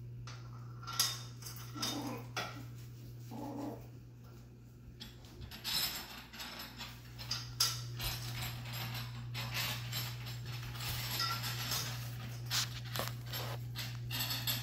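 Chihuahua puppies playing on a tile floor: a busy run of small clicks and scrapes from claws and toys on the tiles, thickening about five seconds in. There are a few short puppy noises in the first seconds, over a steady low hum.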